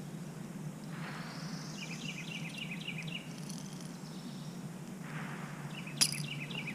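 A songbird repeats a short phrase of quick chirps three times over steady low background noise. One sharp click about six seconds in is the loudest sound.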